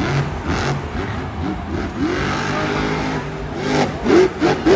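Monster truck's supercharged V8 running hard and being revved in repeated rising bursts. Near the end come several quick, loud throttle blips as the truck goes over a jump.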